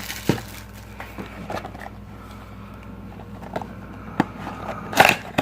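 Hands opening a box of football card packs: scattered light taps, clicks and rustles of cardboard and foil packaging, with one louder rustle about five seconds in.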